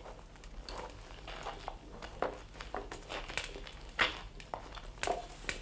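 Scattered light knocks and rustles of food being handled on wooden boards and plates, coming about once a second.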